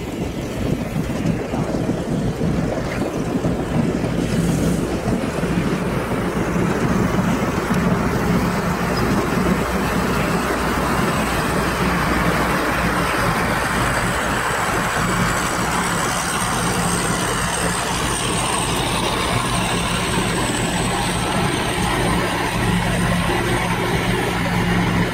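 An engine running steadily, with a continuous low hum.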